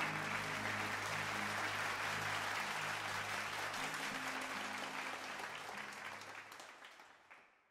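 Church congregation applauding at the end of a worship song, over a few held low notes from the band that linger underneath. The applause and the notes fade out together over the last couple of seconds.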